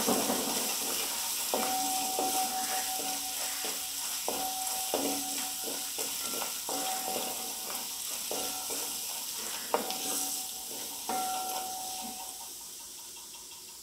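Crushed garlic, ginger and coconut bits sizzling in coconut oil in a wide uruli pan as they are stirred with a wooden spatula. Each knock or scrape of the spatula sets the metal pan ringing with a short clear tone, several times over. The sizzle dies down slightly near the end.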